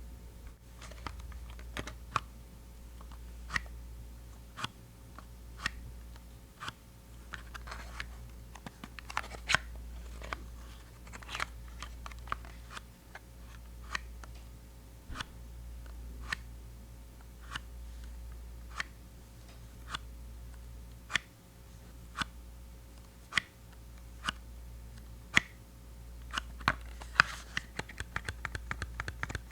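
Sharp taps and clicks on a small plastic toothpaste tube (a mini Colgate Sensitive), about one a second, turning into a quick run of tapping near the end, made as ASMR triggers.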